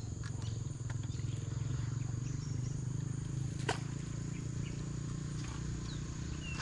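A steady low hum runs through, with a thin, steady insect buzz high above it. A single sharp click comes about three and a half seconds in.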